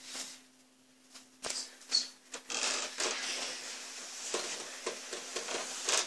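Rustling and soft knocks as people shift about on a bed and a handheld camera is moved. The sounds begin after a brief lull about a second and a half in and continue irregularly over a faint steady hum.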